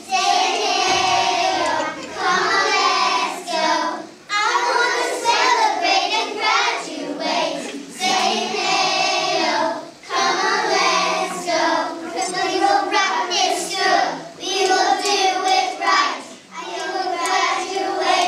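A group of young children singing together in unison, in phrases with a few brief breaks between them.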